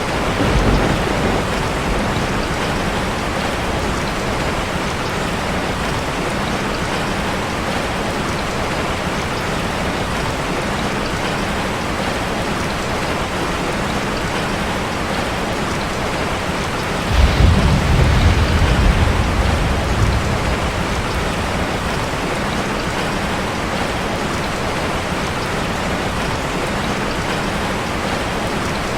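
Steady rain falling on a street. A low rumble of thunder comes about a second in, and a louder one starts about 17 seconds in and fades over a few seconds.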